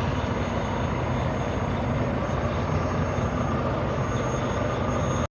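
Steady rumble and hiss of vehicle engine noise, such as idling trucks or passing traffic, with no change in pitch or level.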